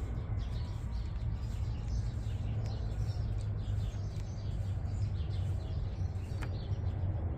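Small birds chirping repeatedly over a steady low hum, with one sharp click near the end.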